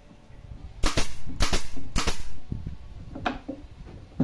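Pneumatic nail gun firing nails into a wooden cabinet panel. About six sharp shots come in quick pairs, then one more shot about a second later.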